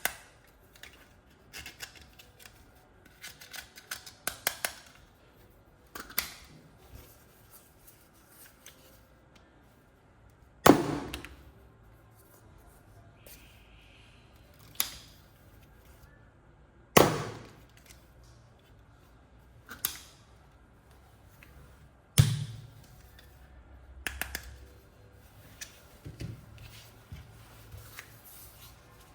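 Toys and packaging being handled: scattered light clicks and knocks, with three louder knocks spaced several seconds apart through the middle.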